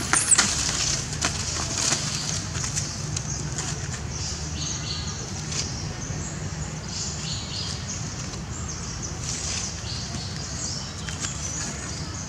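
Outdoor background noise, steady throughout with scattered faint high chirps, after a brief sharp rustle just at the start.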